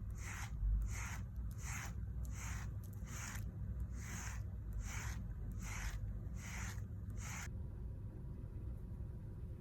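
A hand stroking a cat's fur in a steady rhythm, a soft rasping rub with each stroke at about one and a half strokes a second. The stroking stops about three-quarters of the way through.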